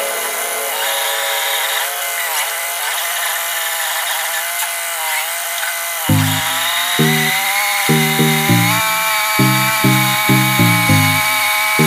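Background music: a held, pitched tone with no bass at first, then a rhythmic bass beat coming in about six seconds in.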